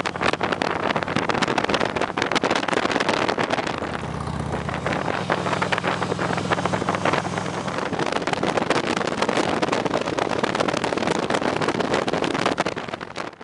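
Motorcycle riding at road speed: heavy wind rush over the on-bike microphone, with the engine's steady low drone coming through more plainly for a few seconds in the middle.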